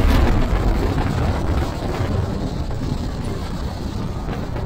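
Wind buffeting a microphone held out the side window of a moving GMC Syclone pickup, over steady road and engine noise. The noise eases slightly after the first second.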